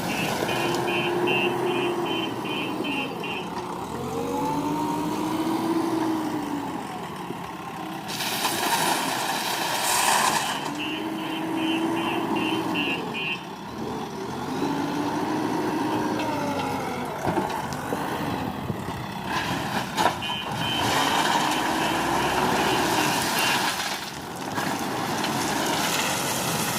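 JCB 3DX Super backhoe loader working, its engine revving up and falling back in repeated cycles. Three times a reversing alarm beeps in a quick run of short high tones, and twice there is a brief burst of rushing noise.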